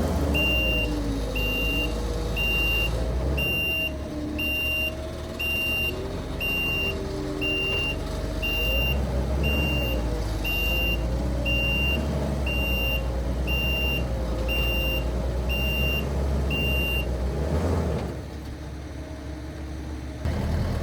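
Skid steer engine working under load, its pitch wandering up and down, with its backup alarm beeping steadily about once a second as it reverses; the beeping stops a few seconds before the end and the engine drops lower soon after.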